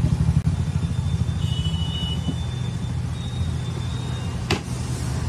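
Road traffic: a motor vehicle's engine rumbling close by, heavier for the first couple of seconds and then easing, with one sharp click about four and a half seconds in.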